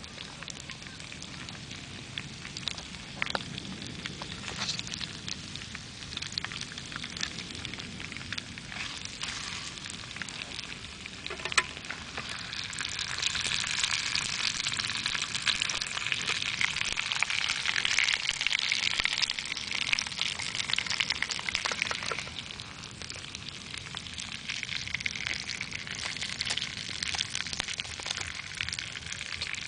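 Pork belly strips sizzling and spitting in a stainless steel mess tin on campfire coals, mixed with the crackle of the wood fire. The frying grows louder about twelve seconds in and eases again after about twenty-two seconds. Just before it swells there is one sharp crack from the fire.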